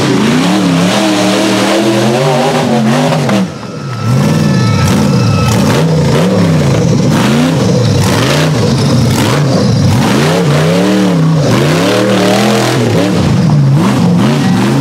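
Rock-crawler buggy engine revved hard again and again under load on a steep rock climb, its pitch swooping up and down about once a second. There is a brief drop about three and a half seconds in.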